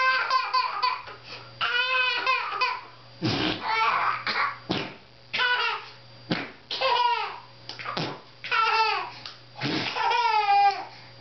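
A one-year-old baby squealing and laughing in a series of high cries about a second apart, each falling in pitch, with short breathy bursts between them.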